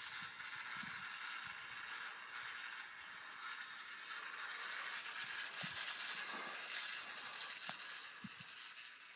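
Steady hiss with a thin, high, steady whine above it and a few faint low thumps, fading near the end.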